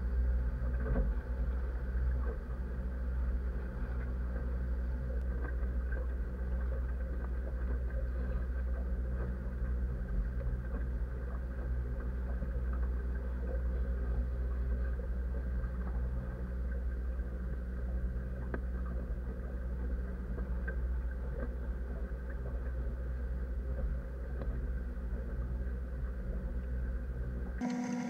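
Motorboat running steadily under way on its Mercury Verado outboard: a constant engine drone with a deep rumble beneath it, breaking off abruptly just before the end.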